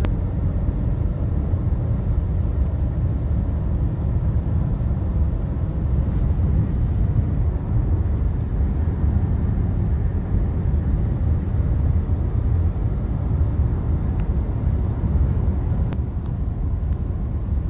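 Steady low rumble of a car driving on a paved highway, heard inside the cabin: road and engine noise with no breaks.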